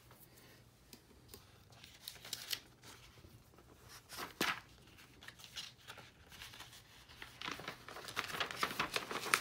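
Rustling and crinkling of a thin translucent cover sheet as hands lift and peel it back from a printed illustration. The strokes are irregular, with one sharp rustle about halfway and busier handling near the end.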